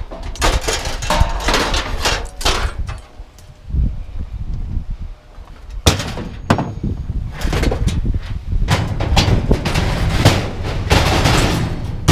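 Scrap metal pieces clanking and banging as they are handled and tossed onto a pile, in clusters of sharp impacts with a lull in the middle, and wind rumbling on the microphone.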